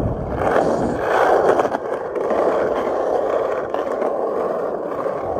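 Skateboard wheels rolling over coarse asphalt: a steady gritty rolling noise.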